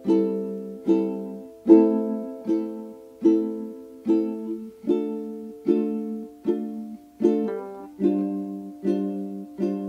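Background music: a strummed string instrument playing chords, one strum about every 0.8 seconds, the chord changing now and then.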